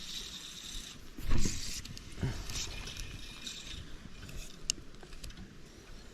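Handling knocks and rubbing on a fishing kayak's hull, with one loud thump about a second and a half in and a smaller knock soon after.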